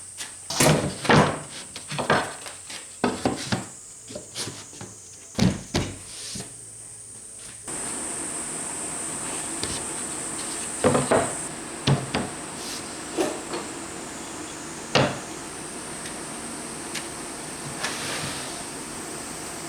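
Irregular wooden knocks and clacks, as of plywood parts being handled and set down, thick for the first seven seconds and then scattered. About eight seconds in, a steady rushing noise comes on underneath and keeps going.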